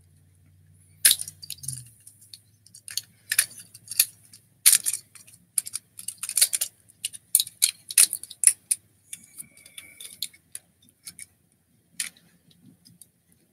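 Plastic clicks, snaps and rattles of a Transformers Siege deluxe Impactor action figure as its joints and parts are twisted and folded from tank mode into robot mode. The clicks come irregularly, often in quick clusters.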